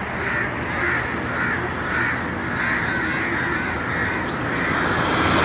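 Crows cawing over and over, about one to two caws a second, over a low steady rumble.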